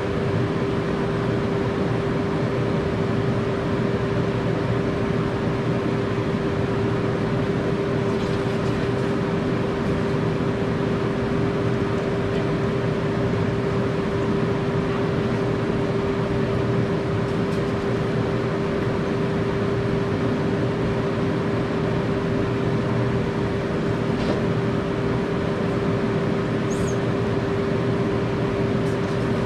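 A motor running with a steady hum and one constant mid-pitched tone over an even noise, unchanging throughout, with a few faint ticks and a brief high squeak near the end.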